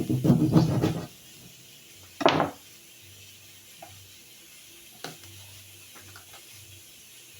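A utensil clattering and scraping against a cooking pot: a quick run of knocks in the first second, one sharp scrape a couple of seconds in, then a few light taps.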